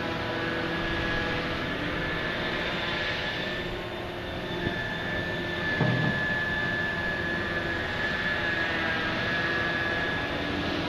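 Heavy machinery of a backhoe dredger, the Liebherr P995 backhoe's engine and hydraulics, running steadily with a high whine over a low drone. A single dull thump comes about six seconds in.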